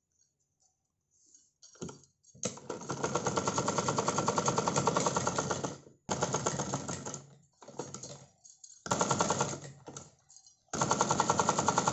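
USHA domestic sewing machine stitching a basting seam in several bursts of rapid, even clatter, stopping and starting with short pauses. The first burst begins about two seconds in.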